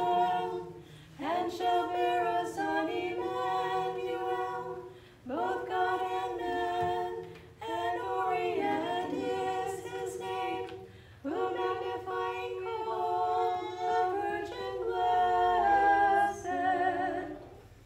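Small Orthodox church choir singing a hymn a cappella, in several short phrases of held notes with brief breaks between them.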